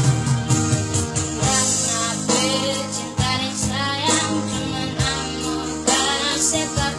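A child singing a song over instrumental backing; the voice comes in about a second and a half in, with a wavering vibrato on held notes.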